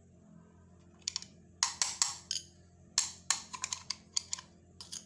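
Irregular sharp clicks and clacks of hard objects being handled, starting about a second in, over faint background music.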